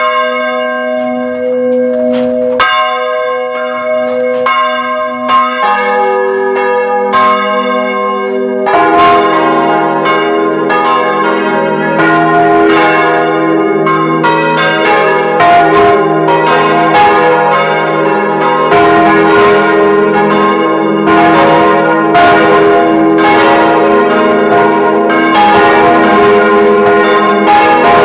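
Church bells cast by the Causard foundry of Colmar, swinging and ringing inside the belfry, heard at close range. One bell strikes alone at first, a second, lower bell joins about six seconds in, and more bells join about nine seconds in, building to a dense full peal.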